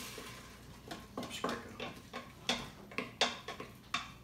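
Wooden spoon stirring and scraping the bottom of a stainless steel Instant Pot inner pot, in a string of short irregular scrapes and knocks. Chicken broth has just gone in to deglaze the sautéed onion and garlic, and the sizzle dies away in the first second.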